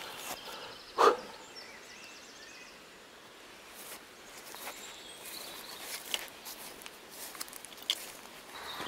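Footsteps of a hiker walking a trail, with scattered scuffs and clicks and one loud knock about a second in; faint bird calls behind.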